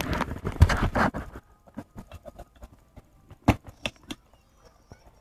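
Close handling noise of a phone being moved about: a dense rustling scuffle with thumps for about the first second and a half, then scattered clicks and taps, with one sharp knock about three and a half seconds in.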